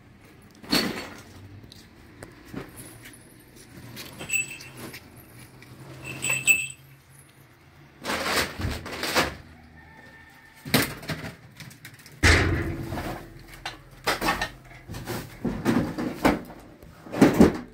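Household things being handled and moved: rustling bags and packages in short bursts, a few small metallic clinks, and a heavier thud about twelve seconds in.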